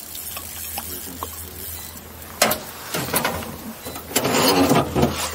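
Small fishing boat's motor humming steadily at low speed. There is a sharp knock about two and a half seconds in, a few clicks, and a loud rushing burst of noise for about a second near the end.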